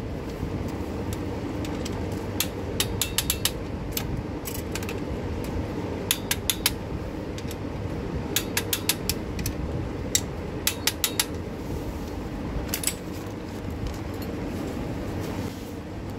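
Socket wrench ratcheting in several short runs of quick clicks, tightening and torquing the bolts of a 2AR-FE engine's balance shaft assembly, over a steady background hum.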